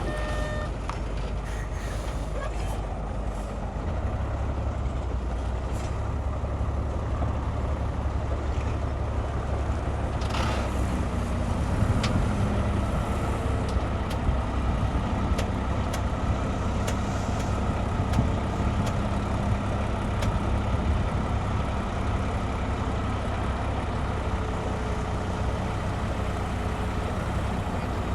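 Heavy diesel engines of earthmoving machinery running with a steady deep rumble, getting louder about four seconds in, with a short hiss about ten seconds in and scattered clicks.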